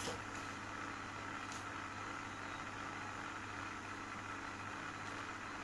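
Electric pedestal fan running: a steady low hum under a soft, even hiss.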